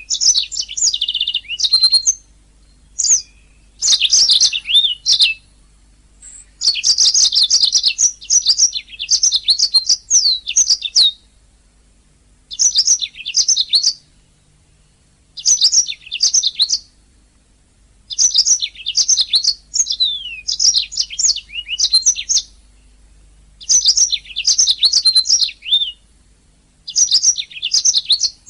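Domestic canary singing: bursts of rapid trills and quick sweeping whistled notes, in phrases of about one to four seconds separated by short pauses.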